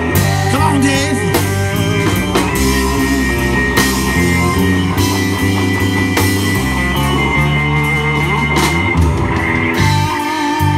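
Live blues-rock band playing an instrumental passage: a Fender Stratocaster electric guitar leads with bent and long sustained notes over bass guitar, drum kit and keyboard.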